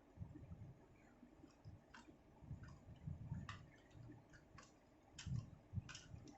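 Faint, irregular plastic clicks of a 2x2 Rubik's cube being turned and handled, with soft low knocks between them.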